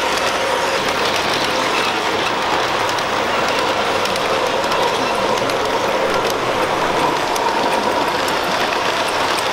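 Williams O-scale Amtrak Genesis model locomotive running along the track: a steady motor-and-gear whir with a faint hum and light ticking of the wheels on the rails.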